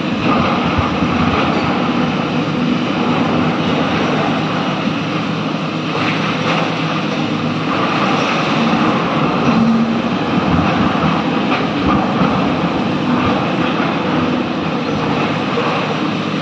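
SANY excavator's diesel engine running under load with its hydraulics working, a loud steady mechanical din as it loads a truck.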